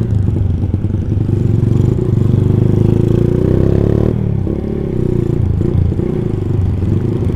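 Honda Tiger motorcycle's single-cylinder engine and exhaust under way. The revs climb for a couple of seconds, drop suddenly about four seconds in, then run on steadily.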